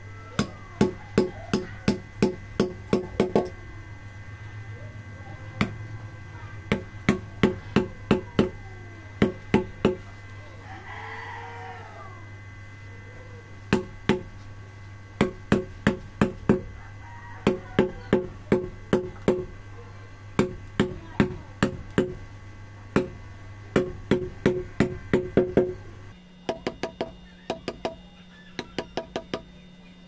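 Hammer striking a steel hand chisel carving into a natural-stone relief panel: runs of quick, sharp taps, about three or four a second, broken by short pauses. The taps are lighter in the last few seconds.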